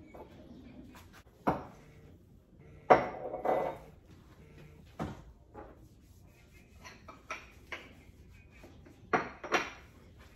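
Bottles and kitchen items being picked up and set down on a granite countertop while it is wiped: a scattered series of knocks and clinks, the loudest about three seconds in with a short clatter after it, and two more close together near the end.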